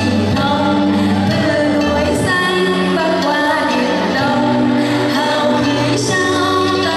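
A girl singing into a handheld microphone over accompaniment music with long held bass notes.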